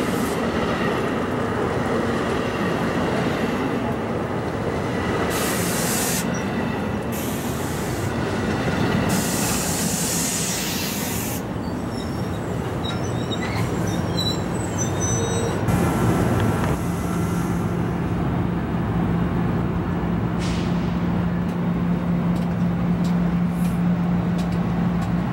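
New Jersey Transit bilevel commuter coaches rolling past close by, a continuous rumble of wheels on rail. For several seconds early on there are bursts of high hissing and squealing from the wheels. About halfway through, a low steady hum comes in and holds.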